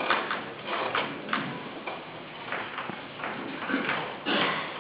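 Chalk on a blackboard: irregular taps and short scratches as a figure is drawn.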